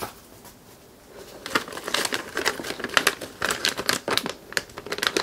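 Plastic bag of propellers crinkling as hands lift it and handle it. The crackling starts about a second and a half in and goes on as a dense run of rustles.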